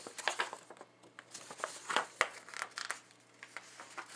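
Paper and plastic packaging being handled, rustling and crinkling in irregular crackles.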